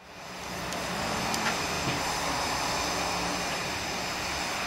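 Kerr Stuart 0-6-2T steam locomotive No. 12 Joan standing with steam hissing steadily from it and a low hum underneath. A few faint ticks sound in the first two seconds. The sound fades in over the first half second.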